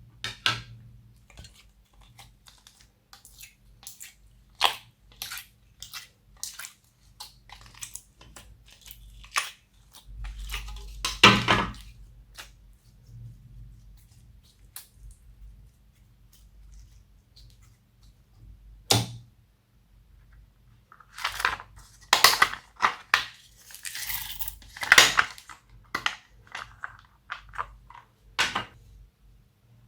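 Hands kneading and squishing slime: a run of sticky clicks and crackling pops, growing louder and denser about a third of the way in and again through the last third.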